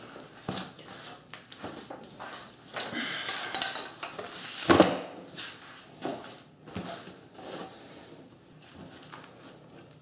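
A tubular metal pack frame with webbing straps being handled and set down on a board: a series of metal clanks and knocks with buckles clinking and fabric rustling, the loudest knock about five seconds in.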